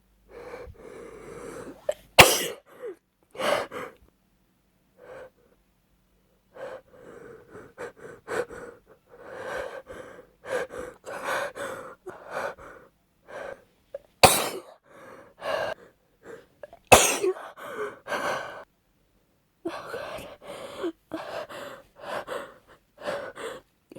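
A woman with a cold building up to sneezes with repeated short, breathy gasping in-breaths, and sneezing four times: two sharp sneezes close together about two seconds in, and two more a little past the middle.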